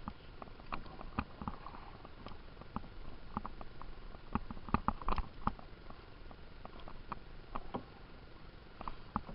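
Canoe paddling: irregular small splashes, drips and knocks from paddle strokes in the water and against the canoe, busiest about halfway through.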